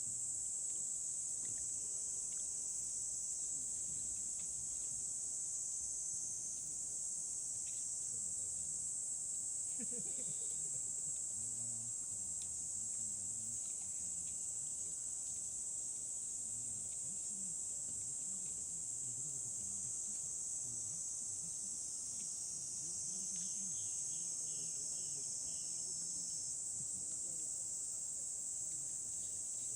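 Steady, unbroken high-pitched insect chorus, typical of crickets or cicadas, with a few extra short chirps joining in past the middle.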